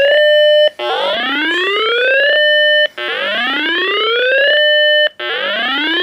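Electronic whooping alert tone announcing a severe thunderstorm warning. It repeats about every two seconds: the pitch rises for about a second and a half, holds a steady note for about half a second, then breaks off and starts again.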